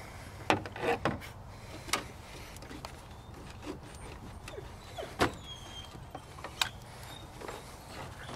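A rubber radiator hose and its spring hose clamp being handled and worked loose with hose clamp pliers: scattered clicks and knocks, the sharpest about half a second in and about five seconds in, with a few faint squeaks.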